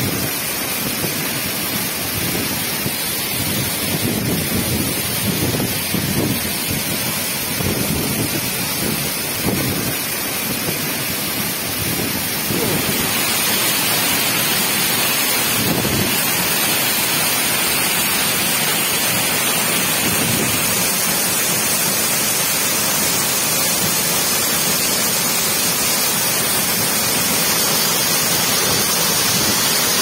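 Rushing water of a waterfall, a loud steady hiss, with gusts of wind buffeting the microphone in the first half. About halfway through, the rush turns brighter and steadier.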